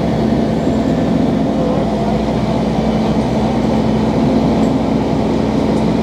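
Heavy-duty tow truck's diesel engine running steadily: a constant drone with a low, even hum.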